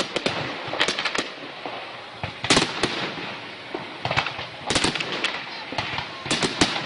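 Fireworks finale: clusters of sharp bangs going off in quick succession about once a second, over a steady noisy background.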